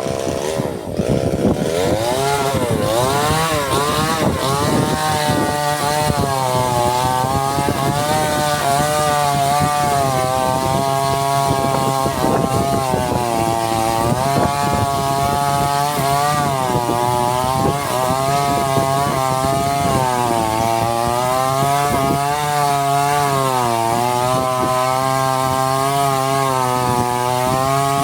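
Chainsaw running at high revs and cutting into wood, its engine pitch rising as it revs up about a second in and then wavering up and down as it bogs under load and recovers.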